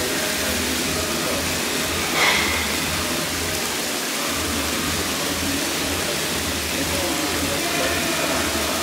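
Steady rushing noise, like running water or moving air, with a brief louder hiss about two seconds in.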